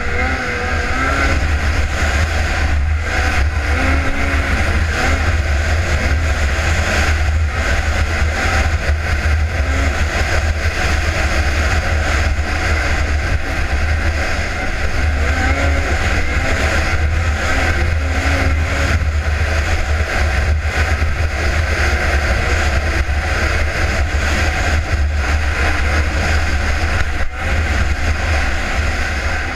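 Polaris race snowmobile's engine running hard at steady high revs while the sled travels at speed, with a constant low rumble of wind buffeting the helmet-mounted microphone.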